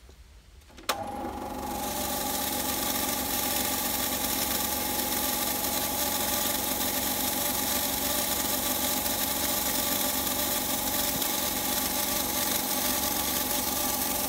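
An electric paint-spraying system's motor switches on with a click about a second in, then runs steadily with a whine and hum. The spray gun is not spraying: no air is coming out of its front.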